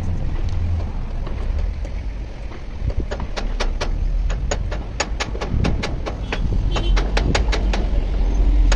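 A steady low rumble, like road traffic, with a quick, uneven run of sharp taps or knocks starting about three seconds in, roughly four a second.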